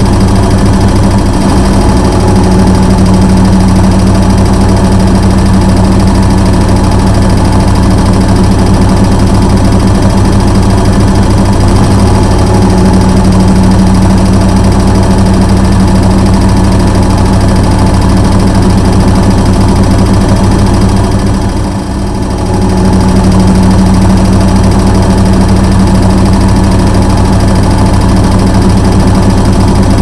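Washing machine humming: a loud, steady low drone that dips briefly about two-thirds of the way through.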